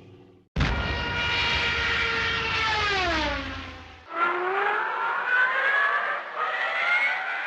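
Cartoon airplane sound effects. An engine drone holds steady and then falls in pitch as if diving, and cuts off about four seconds in. A second airplane drone follows, climbing steadily in pitch.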